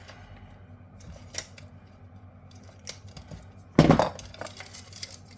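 Small metal parts and tools clicking and clinking as fuses are pulled out of a backup power supply being stripped for scrap, with one loud clunk about four seconds in.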